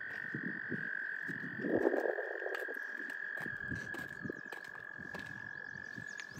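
Steady high-pitched drone of a chirping insect chorus, with irregular lower calls pulsing beneath it and a louder low burst about two seconds in.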